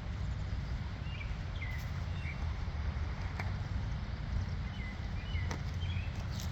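Small birds chirping in short, falling calls every second or so over a steady low rumble of outdoor background noise.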